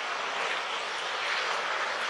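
Ocean surf: waves breaking and washing in, heard as a steady rushing hiss.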